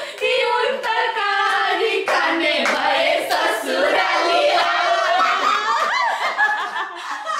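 Several people singing together and laughing, with some hand clapping.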